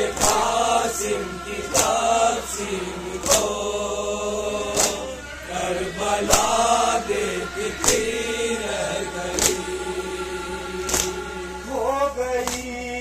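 Male voice chanting a noha, a Shia lament for Karbala, into a microphone. Sharp, evenly spaced strikes of chest-beating (matam) land about every second and a half, keeping the beat.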